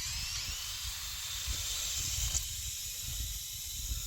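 Pressurised water hissing and spraying out of a leaking makeshift hose connection on a broken outdoor spigot, held on with PVC glue and zip ties. A whistling tone rises at the start, and a steady hiss follows.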